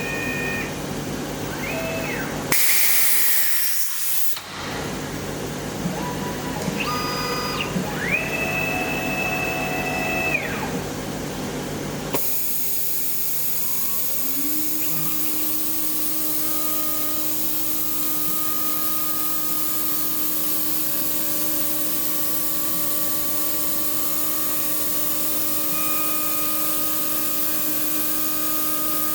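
Desktop mini CNC milling machine. Its axis motors whine in tones that ramp up, hold and ramp down as the axes move, with a loud burst of hiss about three seconds in. About fourteen seconds in, the spindle spins up with a rising whine and then runs at a steady pitch.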